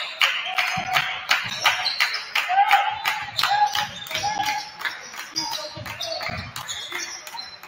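Basketball game sounds on a gym court: a ball bouncing on the hardwood floor, with short high squeaks from sneakers and voices in the gym.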